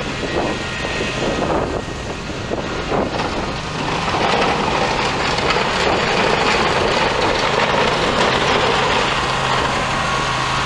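Scag Tiger Cat zero-turn mower engine running steadily under load while it pushes a front blade through dirt and gravel, growing louder about four seconds in as it comes closer.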